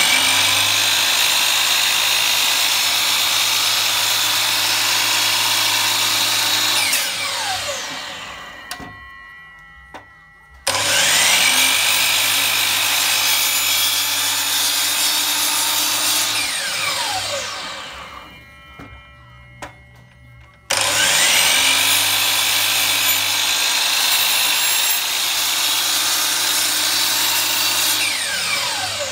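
DeWalt DWS780 sliding miter saw started three times. Each time it runs at full speed for about six seconds while its blade cuts the slot in a new hardwood zero-clearance throat plate, then winds down with a falling whine.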